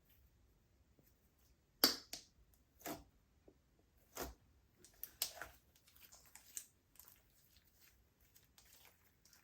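Slime being mixed and pressed by hand, giving a run of short sticky clicks and pops, the loudest about two seconds in.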